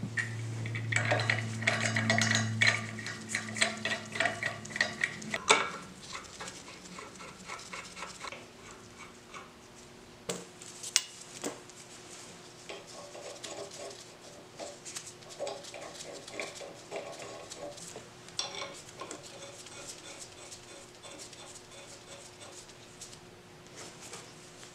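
Brass Victor Edge regulator fittings being threaded and tightened onto oxygen and acetylene cylinder valves with a wrench: scattered metallic clinks and taps. A low steady hum sounds for the first few seconds.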